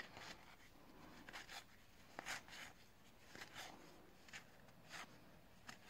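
Faint, brief swishes of cardboard baseball cards sliding against one another as they are flipped one behind another in the hand, coming irregularly about once or twice a second.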